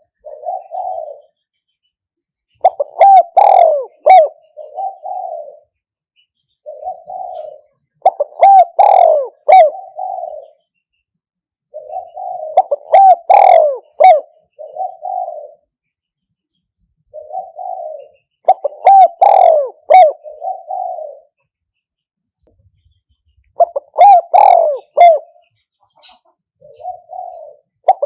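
Spotted dove calling: the same cooing phrase repeated every four to six seconds, each a quick run of loud coos with softer notes before and after. It is the 'one-kuk' call played as a lure for trapping wild doves.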